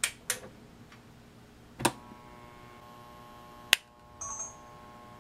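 High-voltage transient generator test rig firing into a multimeter: a few sharp clicks, then a steady electrical hum from about two seconds in, broken by one sharp, loud crack a little past halfway.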